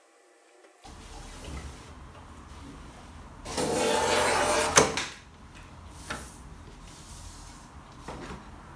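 Olympia TR 6712 rotary paper trimmer cutting through notebook cover card: the cutting head slides along its rail for about a second and a half and ends with a sharp click. Softer taps of the card being handled and squared up on the trimmer bed follow.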